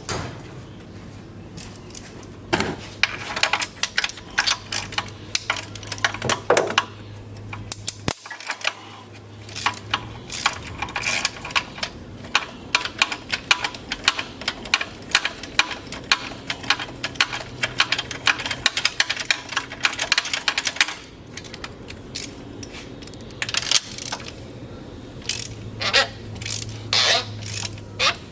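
Small metal parts and hand tools clinking and rattling in quick, irregular taps, with a short lull about two-thirds of the way through, over a steady low hum.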